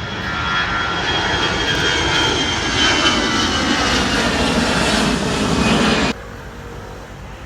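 An airliner's engines passing close, the noise swelling with a high whine, then cutting off abruptly about six seconds in.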